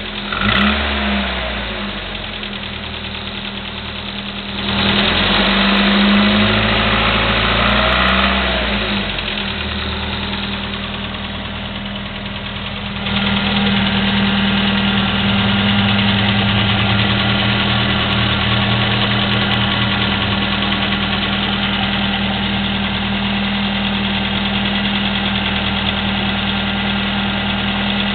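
Chevy S-10's 2.2L four-cylinder engine, breathing through a Flowmaster 40 muffler, revving up and falling back a couple of times, then settling to a steady idle that gets louder about halfway through. It carries a valve/lifter clicking that the owner says has gone on for 45,000 miles and is common on the S-10.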